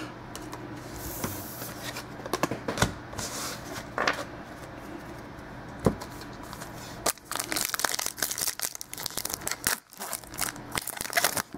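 A trading-card pack wrapper crinkling and tearing as it is opened, after a few light taps of cards being handled. The crinkling is densest over the last few seconds.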